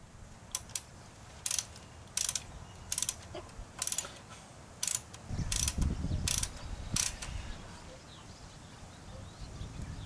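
Small hand ratchet clicking in short bursts, about one a second, as a bolt on a motorcycle's brake line bracket is run in and tightened; the clicking stops about two-thirds of the way through.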